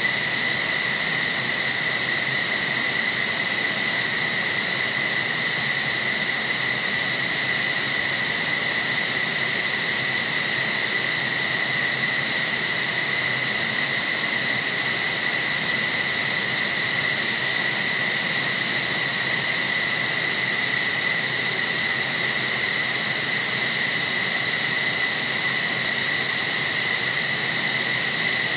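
Jet turbine noise from an F-15SG during its start-up: a steady high whine over a constant rush, unchanging in pitch and level.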